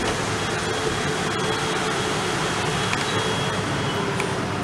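South Western Railway electric multiple unit running past the platform: a steady rumble of wheels on the rails with a faint, even whine.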